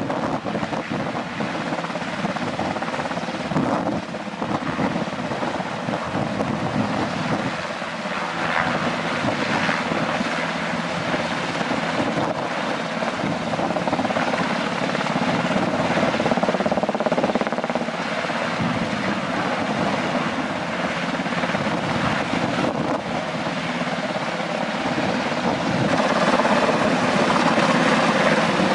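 Rescue helicopter hovering overhead during a winch lift, its rotors and engines giving a steady din that grows louder near the end.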